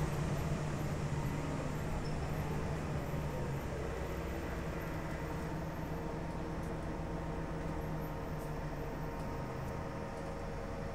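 Cabin noise of a 2011 New Flyer DE60LFR diesel-electric hybrid articulated bus with an Allison EP50 hybrid drive, under way between stops: a steady low drivetrain hum and road rumble, easing a little in level.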